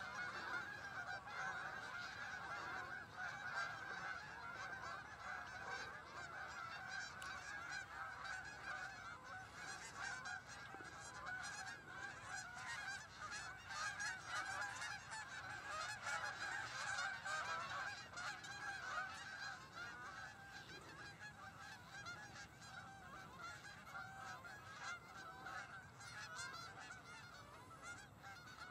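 A large flock of Canada geese honking in a dense, continuous chorus of overlapping calls, growing fainter near the end.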